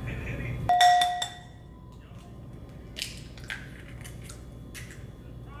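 A steady low hum cuts off under a second in, then a loud, ringing clink like glass or ceramic being struck or set down, followed by a few lighter clicks and taps of dishes.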